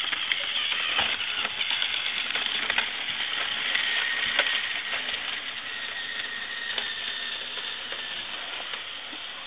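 A battery-powered toy train's small electric motor whirring steadily as it runs, with a rapid run of small clicks from its wheels on the plastic track.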